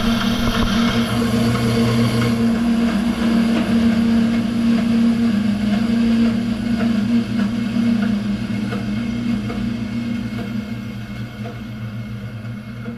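An electric motor running steadily: a loud low hum with a whir over it, easing off a little after about two seconds and fading somewhat over the last few seconds.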